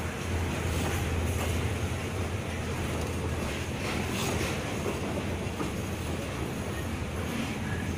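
Passenger train running, heard from inside the carriage at an open window: a steady low rumble of wheels and running gear, with a few faint clicks from the wheels on the track.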